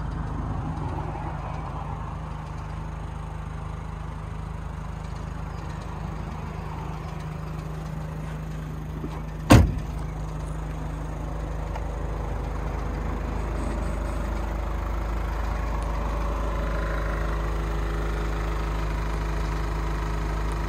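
Ford Transit Connect van's engine idling steadily, with one loud door slam about halfway through as the cab door is shut.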